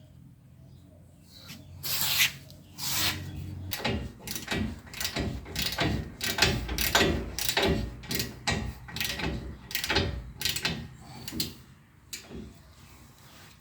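Hand tools working the nut and spacer washer onto the upper ball joint stud of a pickup's steering knuckle: an irregular series of short clicks and scrapes, about one or two a second, starting about two seconds in and dying away near the end.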